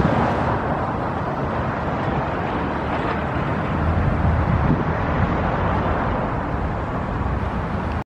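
Steady outdoor urban background noise with a low rumble that stays even throughout.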